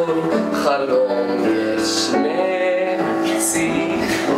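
A man and a woman singing a duet over upright piano accompaniment, holding long notes with vibrato.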